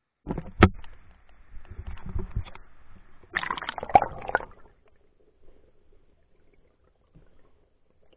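Water sloshing and splashing around a camera being dunked into a shallow stream, with a sharp knock about half a second in and a second flurry of splashes and knocks near the middle. After that only faint, muffled underwater sound remains.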